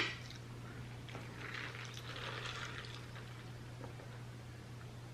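Faint eating sounds: a soft noisy stretch from about one and a half to three seconds in, over a steady low hum.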